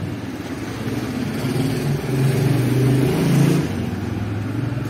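Street traffic: a motor vehicle's engine running close by, swelling and rising in pitch about two seconds in, then easing off about a second and a half later, over a steady wash of city noise.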